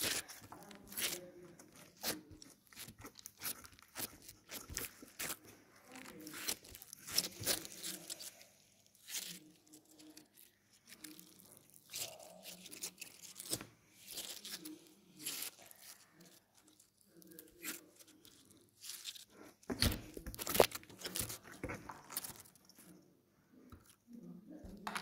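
Slime being squeezed and stretched by hand, making irregular wet crackles, pops and clicks.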